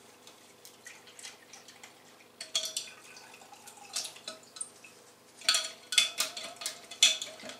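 Pine cones being rinsed in acetone in a tin can: liquid dripping and sloshing, with clusters of sharp clinks against the can, once about two and a half seconds in and several more between five and a half and seven seconds.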